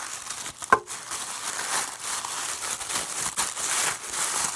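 Packaging crinkling and rustling as toy skate ramp pieces are handled, with small clicks throughout and one sharp knock under a second in.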